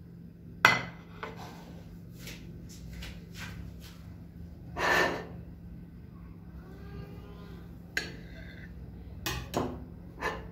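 A metal table knife clinking and scraping on a porcelain plate as a slice of cake is cut. A sharp clink comes about half a second in, then lighter taps, a longer scrape about five seconds in, and several more clinks near the end.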